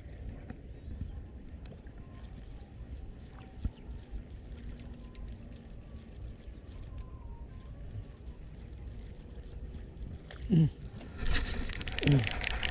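Insects buzzing steadily at a high pitch over a low outdoor rumble. Near the end the buzz is cut by a sudden burst of noise and short vocal exclamations.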